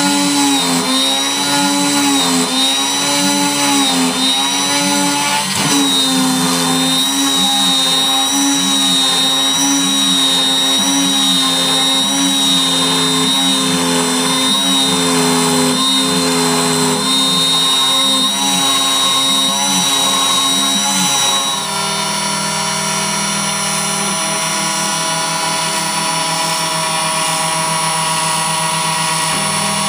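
DIY CNC router spindle, powered by a brushless RC airplane motor, whining as its end mill cuts into plywood, its pitch wavering through the cut. About 21 seconds in the sound steadies and drops a little in level.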